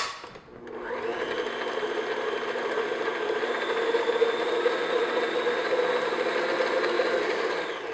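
Electric stand mixer's motor starting up about half a second in, running steadily with a hum as the paddle attachment creams butter and sugar in a steel bowl, then spinning down near the end.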